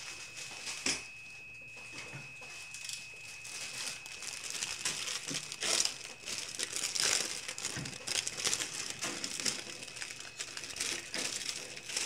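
Clear plastic bag crinkling and rustling as it is opened and the plastic sprues inside are handled, with a few louder crinkles.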